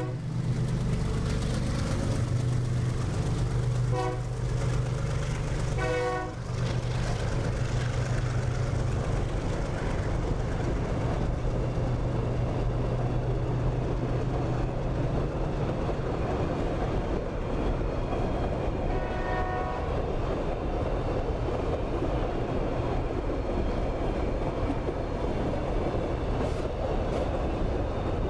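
Freight train of boxcars rolling past close by, a steady rumble and rattle of steel wheels on rail. A low drone from the passing diesel locomotive fades out about halfway through. The locomotive horn gives two short blasts about four and six seconds in.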